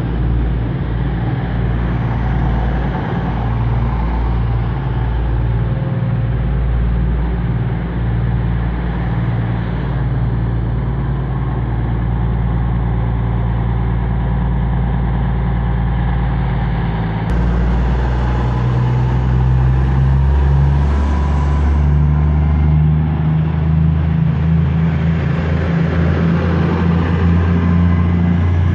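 East Midlands Trains Class 222 Meridian diesel multiple unit moving slowly alongside, its underfloor diesel engines running with a steady low drone. About two-thirds of the way through, the engine note shifts higher and grows a little louder.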